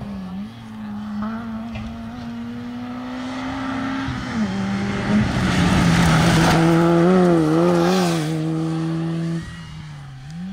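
A rally car's engine revving hard as it comes up and passes close. The engine note drops at a gear change about four seconds in, then wavers up and down several times as the car goes through the corner. Tyre noise is loudest as it passes, and the sound falls off sharply near the end.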